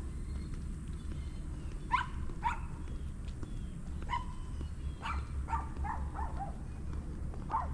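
Dog barking: short, sharp barks, singly or in pairs at first, then a quick run of four or five about five seconds in, and one more near the end, over a steady low rumble.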